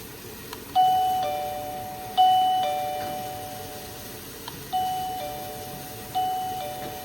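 Doorbell chime playing a two-tone ding-dong, high note then low note, twice in a row; then after a short pause the double ding-dong plays again. A small click comes just before each round, and each note rings out and fades.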